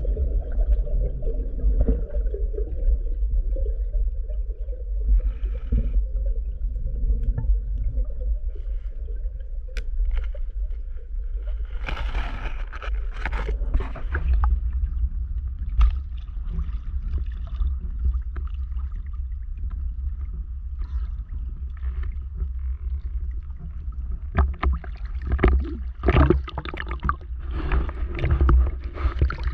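Muffled underwater rumble and gurgling around a freediver's camera, giving way about twelve seconds in to irregular splashing and sloshing of water at the surface.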